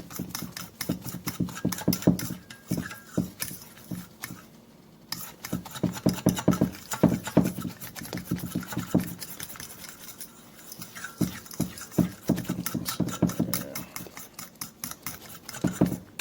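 Thick flour-and-buttermilk batter being stirred in a bowl, the utensil clicking and tapping against the bowl many times a second, in spells broken by short pauses about four seconds in and again near ten seconds.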